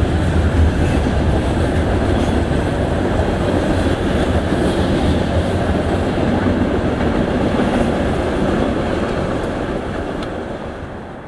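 Freight train rolling past on the rails, a steady low rolling noise with wheel-on-rail clatter, fading away in the last second or so.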